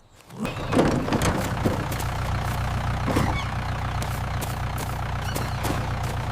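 Vehicle engine starting up and then running steadily with a low drone, with scattered light clicks over it.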